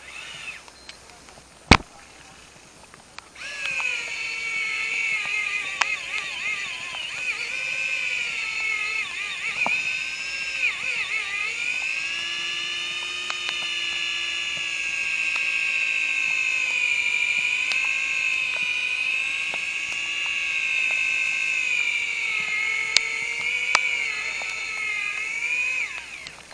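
A sharp click, then the reel's drag screaming steadily as a hooked fish strips line off the spool, a continuous whine that wavers slowly in pitch and stops near the end.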